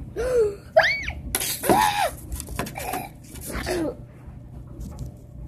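A child's voice making wordless squeals and cries: a short sliding squeal, a high squeal that rises and falls about a second in, then a loud, hissing shriek and a few shorter cries, dying away about four seconds in.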